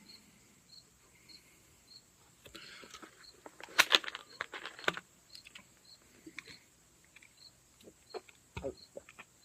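A cricket chirps steadily, about two chirps a second, under scattered clicks and rustling. A sharp clatter of clicks comes about four seconds in.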